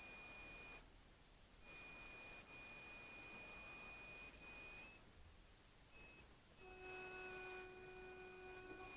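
Steady high-pitched electronic whine from the Grovers Cut40 plasma cutter, cutting out and coming back several times. A lower steady hum-like tone joins it about two-thirds of the way through.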